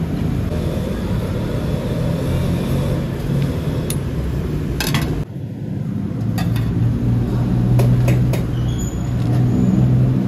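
A steady, low engine rumble, with a few sharp knocks from a knife chopping on a wooden block.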